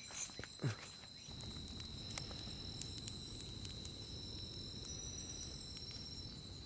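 Faint night chorus of crickets: one steady high trill. With it, a wood bonfire crackles in scattered small pops, and from about a second in a low rushing noise. A brief falling swoosh comes just over half a second in.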